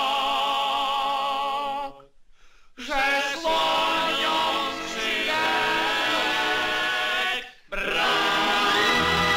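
Male voices singing in close harmony: a loud held final chord with heavy vibrato that cuts off about two seconds in. After a short pause the voices come back in gliding harmony, drop out once more briefly, and then music with a steady bass comes in near the end.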